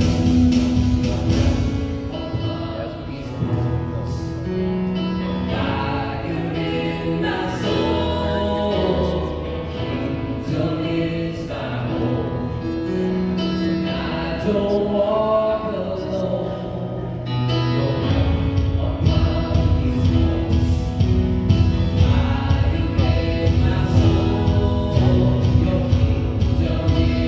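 Music with singing voices over an accompaniment, with a heavier bass coming in about two-thirds of the way through.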